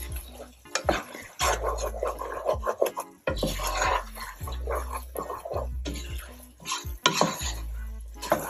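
A spoon stirring risotto in a pan, scraping and clinking against the pan again and again as the broth cooks in. Background music with a bass line plays under it.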